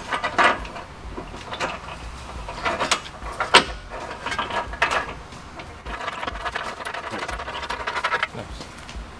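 An aluminum skid plate being pushed up into place under a car and fastened by hand: scattered clicks, knocks and rubbing of metal against the underbody, with one sharp knock about three and a half seconds in and a rough steady noise for about two seconds near the end.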